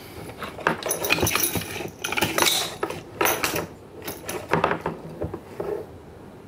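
Plastic and metal parts of a Rotax 503 recoil pull-starter clattering as they are handled and set down on a table: irregular clicks and knocks that stop near the end.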